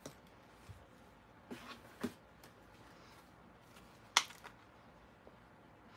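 Small objects being handled: a few light clicks and knocks as items are picked up and turned over, the sharpest about four seconds in.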